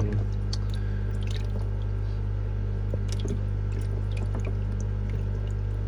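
Aquarium water dripping and trickling, with a few small splashes, over a steady low hum of fish-room pumps and filters.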